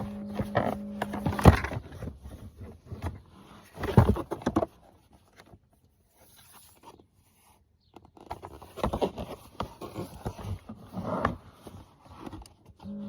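Plastic interior trim of the cabin filter housing being handled and fitted back into place: scraping with irregular knocks. The two loudest knocks come about one and a half and four seconds in, followed by a quiet spell and then more scraping and tapping.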